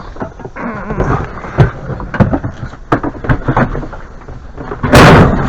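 Irregular knocks and clatter of objects being handled and set down, with a loud, harsh burst of noise starting about five seconds in.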